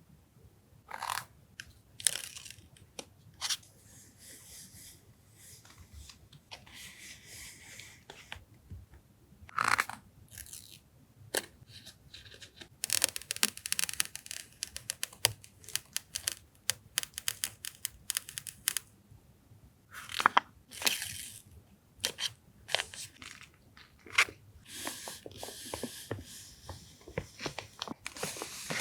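Paper and plastic packaging of stationery being handled and unwrapped: irregular crinkling and rustling with sharp taps and clicks, densest about halfway through.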